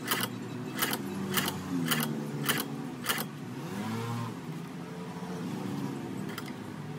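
Hand-cranked shoe-patching sewing machine stitching through a sneaker's sole: the needle bar clacks about twice a second for the first three seconds or so, then the mechanism runs on more softly with a whir that rises and falls in pitch.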